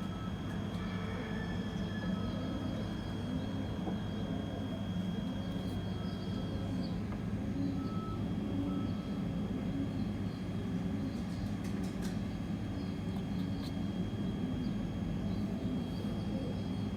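Steady low mechanical hum with a thin, constant high-pitched whine that drops out for a few seconds in the middle.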